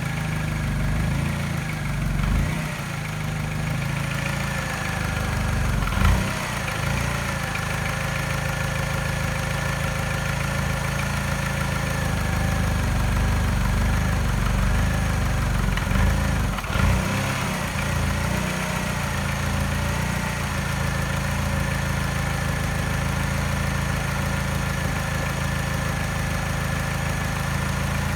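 Mini's petrol engine idling roughly with a mild tap and a very slight miss. The tap persists even though the timing chain, tensioner and piston rings have been replaced. Twice there is a brief louder bump, about six and seventeen seconds in.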